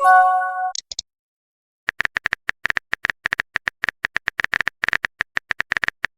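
A chat-app notification chime, a short chord of a few tones, then after a pause of about a second a quick run of phone-keyboard typing clicks lasting about four seconds.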